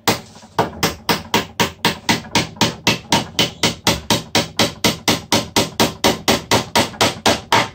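Small hammer tapping a panel pin into a wooden cabinet's thin back panel, a steady run of quick light strikes at about four a second, driving the nail in to re-secure the loose panel.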